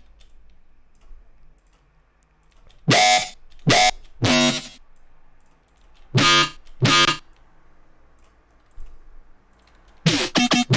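Short, heavily processed synth bass stabs resampled from a single bass preset, played back as a gapped drop pattern: three hits about three seconds in, two more around six seconds, and another near the end.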